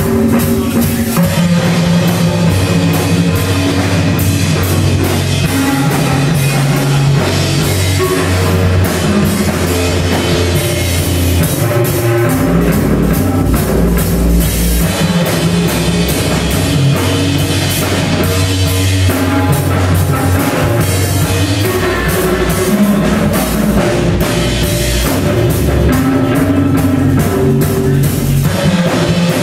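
Loud live band playing rock, with a drum kit hit hard over sustained bass notes and guitar.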